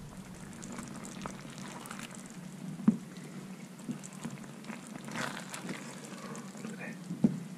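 A serving spoon scooping potatoes and meat in rice gravy from a pan onto a plate: soft wet slops with small clicks and knocks of the spoon, two sharper knocks about three seconds in and near the end, over a faint steady hum.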